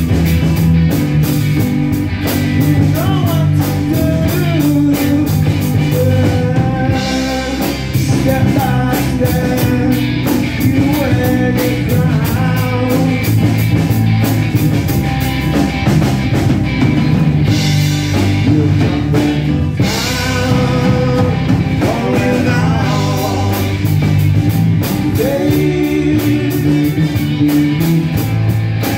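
Live rock band playing a song: drum kit, electric guitars and strummed acoustic guitar, with a steady beat and no breaks.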